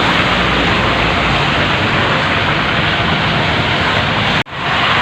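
Steady rushing noise of cars on a wet road, tyres hissing through standing water over a low engine hum. It drops out sharply for a moment about four and a half seconds in, then comes back.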